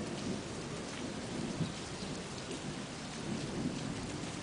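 Thunderstorm: steady rain falling, with a low rumble of thunder under it.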